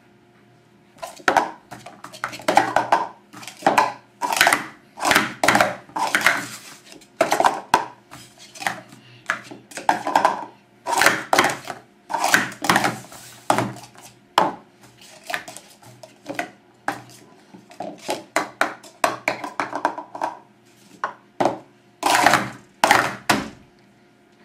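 Plastic Speed Stacks sport-stacking cups clattering rapidly on a stacking mat as they are stacked up into pyramids and collapsed back down in quick runs of taps and knocks. The clatter starts about a second in and stops shortly before the end.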